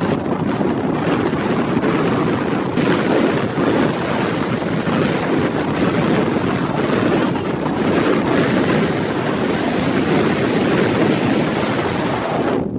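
Strong wind buffeting the camera's microphone: loud, steady wind noise that swamps the other sounds.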